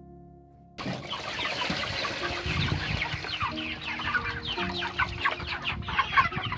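A flock of chickens calling, many short falling chirps and clucks overlapping densely. It starts suddenly a little under a second in, with faint background music underneath.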